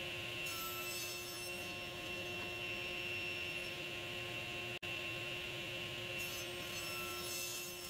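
Table saw with a 10-inch, 40-tooth blade running steadily, cutting through hard maple twice: once about half a second in and again about six seconds in, each cut lasting a second or so. The sound drops out for an instant near the middle.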